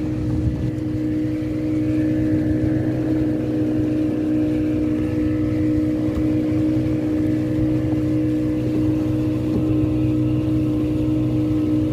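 Fishing boat's engine running steadily, a constant drone that holds one speed throughout.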